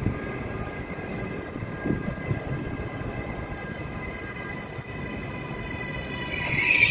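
Approaching freight train: a faint steady high-pitched whine of several tones over low rumble, swelling into a loud squeal near the end.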